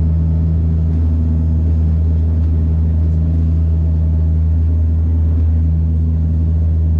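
Steady drone of a Bombardier Dash 8 Q200's turboprop engine and propeller, heard from inside the cabin beside the wing: a deep, even hum with a strong low tone.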